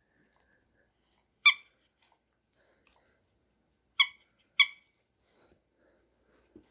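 A dog's squeaky toy squeaks three times: once about a second and a half in, then twice in quick succession about four seconds in. Each squeak is short, high and sharp.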